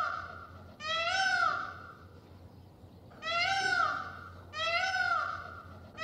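Indian peafowl (peacock) calling: a string of loud, meow-like calls, each about a second long and rising then falling in pitch, about four of them with short gaps between.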